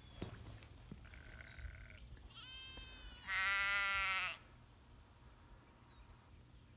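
A sheep bleating: a fainter, shorter call about two and a half seconds in, then one loud bleat lasting about a second.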